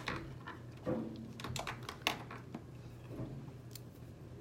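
Scattered light clicks and taps of small makeup items being picked up and handled, a brow pencil among them, over a low steady hum.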